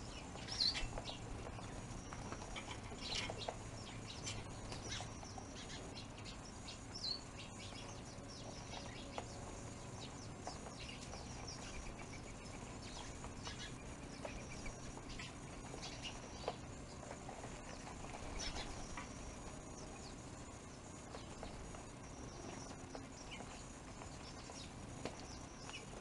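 Small birds at a feeder: faint, scattered short chirps and occasional wing flutters.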